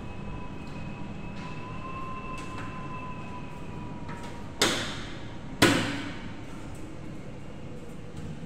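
Two sharp clacks about a second apart as a round surface-mounted LED ceiling light is pushed into place against the ceiling.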